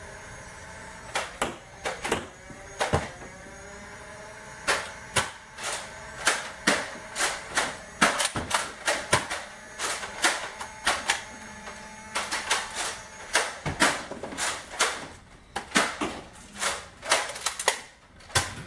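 Nerf foam-dart blasters being fired and cocked in a running dart fight: a long, irregular run of sharp plastic clicks and snaps, often several a second.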